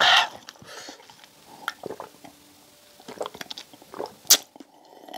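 Close-miked mouth sounds of eating and drinking: wet chewing and lip smacks, then sips and swallows of juice from a glass mug, with one sharp click about four seconds in.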